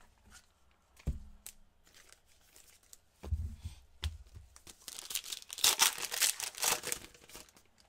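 A foil pack of Donruss Optic basketball trading cards being torn open by hand: a couple of seconds of crinkly tearing near the end, after a few soft thumps.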